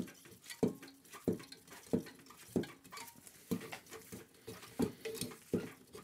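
Repeated metallic clicks, about one every two-thirds of a second, each with a short ring, as a screwdriver works at a suspension spring inside an opened refrigerator compressor.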